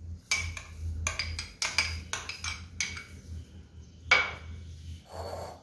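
Metal spoon clinking and scraping against glass bowls while chopped carrot is scooped out of a small bowl into mashed potato: a run of quick irregular clicks, with a sharper knock about four seconds in and a short scrape near the end.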